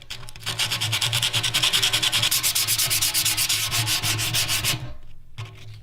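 60 grit sandpaper rubbed over a rusted metal tank surface in rapid, even back-and-forth strokes to take it down to bare metal. It starts about half a second in and stops abruptly near the end.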